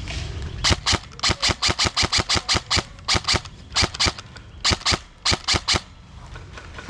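Airsoft gun firing a fast string of single sharp shots, about five a second at first, then in pairs and short runs with pauses, about twenty in all.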